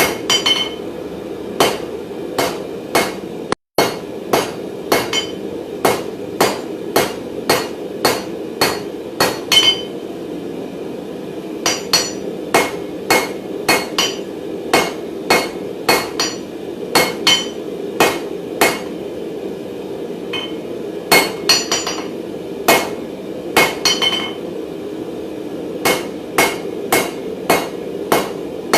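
Hand hammer striking hot mild steel bar on an anvil, drawing the bar out, at a steady pace of about two ringing blows a second with a few short pauses. A steady low drone runs underneath.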